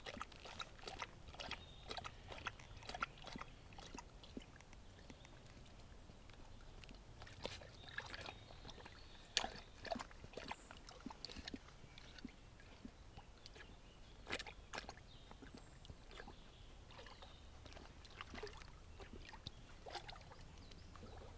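Akita dog wading in water, making small irregular splashes and sloshes.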